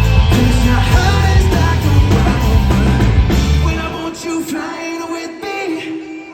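Live pop band and singer playing through a concert PA, with heavy bass and drums; about four seconds in, the bass and drums drop out, leaving a thinner, quieter ending with a held note.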